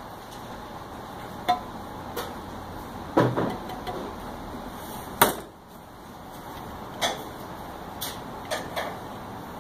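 Scattered sharp knocks and taps, about eight of them, the loudest about five seconds in, as a plastic measuring jug knocks against the stainless steel basket of a tincture press while elderberry mash is poured in. A steady hiss runs underneath.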